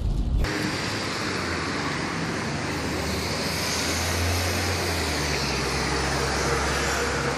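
Steady traffic noise with a low vehicle engine hum. About half a second in, it changes abruptly from muffled in-car road noise to open street noise.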